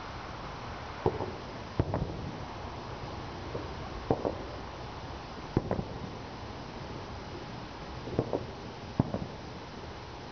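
Distant fireworks shells bursting: a scattered series of sharp booms, one every second or two, some in quick pairs, each trailing off in a short echo, over a steady background hiss.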